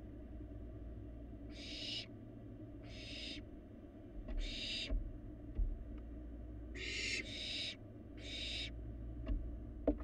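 Young barn owl giving rasping hiss calls, about half a second each, six times at irregular intervals. This is the hissing food-begging call of a barn owl fledgling. Under the calls runs a low steady hum, and a few faint clicks come near the end.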